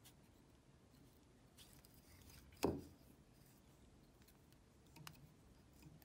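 Near silence, with quiet room tone, one sharp click a little under three seconds in, and a fainter tick near the end, from hands working at a fly-tying vise.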